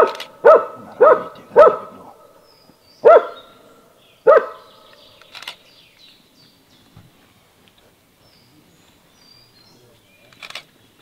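Hunting dog barking at a wild boar it has found: about six loud barks, four in quick succession and then two more spaced out, after which the barking stops. Faint bird chirps follow.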